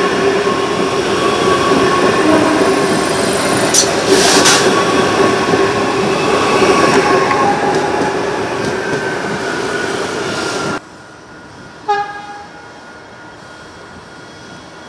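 Adelaide Metro 4000-class electric multiple-unit trains running close past: a loud steady rumble of wheels on rail with humming motor tones and two sharp clicks about four seconds in. The loud train noise cuts off abruptly about eleven seconds in to a quieter background, and a short horn toot sounds about a second later.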